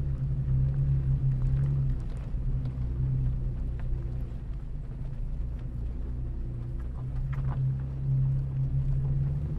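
Off-road truck's engine running steadily at low trail speed, a low drone that swells slightly twice, with a few faint clicks as it drives over a dirt track.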